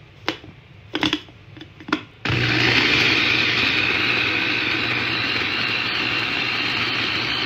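Electric mini food chopper: a few plastic clicks as the lid and motor head are fitted, then about two seconds in the motor starts and runs steadily, its blades whirring as they grind vegetables and spices into a paste.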